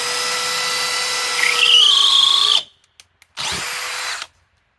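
DeWalt DCD805 cordless hammer drill on speed 2, boring with a 1/2 inch spade bit. The motor whines steadily, then grows louder with a rising high squeal from about a second and a half in as the bit cuts under load. It stops, and a second short burst of drilling follows.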